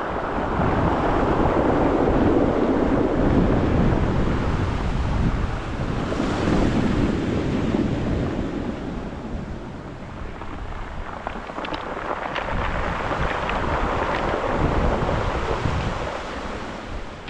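Small waves breaking and washing up a pebble beach, with wind buffeting the microphone. The surf swells twice, strongly in the first few seconds and again about two thirds of the way through, with a few light clicks in the second swell.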